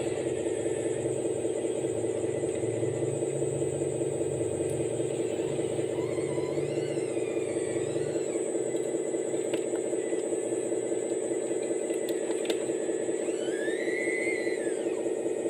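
Radio-controlled model Komatsu PC240 hydraulic excavator running with a steady hum. A higher whine rises and falls twice as the hydraulics work.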